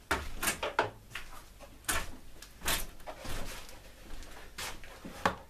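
A handful of short, irregular clicks and knocks from tools and parts being handled on a workbench.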